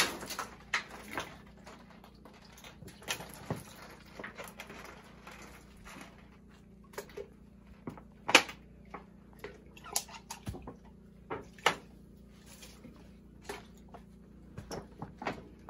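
Scattered short knocks and rustles of a person moving about and handling things while bathing, the loudest a little past eight seconds in, over a low steady hum.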